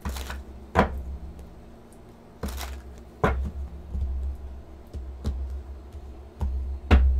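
Tarot cards being handled and laid down on a table: a series of sharp taps and soft thumps, roughly one a second, with a brief swish of cards sliding about two and a half seconds in.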